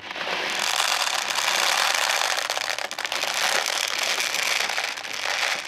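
Plastic 0.20 g airsoft BBs poured from a bag into a high-capacity magazine: a steady stream of many tiny clicks rattling together.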